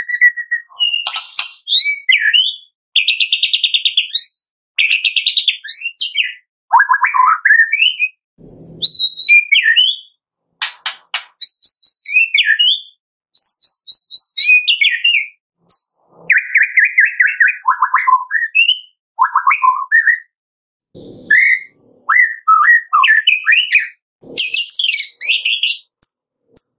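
White-rumped shama singing a long, varied song of short phrases: clear whistles, slurred notes and fast rattling trills, separated by brief pauses.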